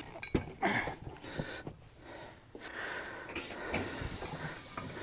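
A few sharp knocks, scrapes and clunks of metal tools working a tire bead over a wheel rim on a manual tire changer, with a short rasping scrape about three and a half seconds in.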